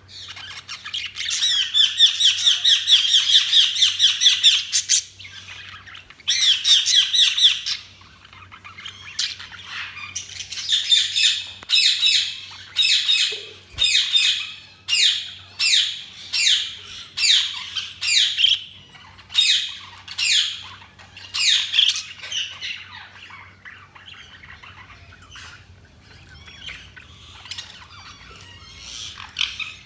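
Budgerigars chirping and squawking: a rapid run of chattering calls in the first several seconds, then a string of separate sharp calls about one a second, tailing off to softer twitters near the end.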